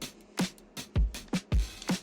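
Background electronic music with a steady beat of deep kick drums and sharp snare and hi-hat hits.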